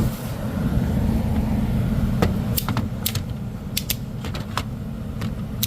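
Scattered light clicks and taps, irregular and a few per second from about two seconds in, over a steady low hum.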